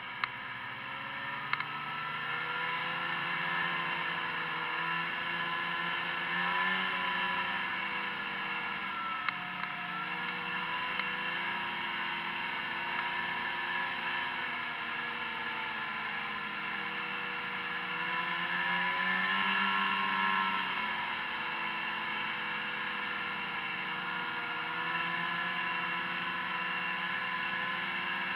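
Snowmobile engine running as the sled travels along a trail, its pitch rising and falling with the throttle, highest and loudest about twenty seconds in.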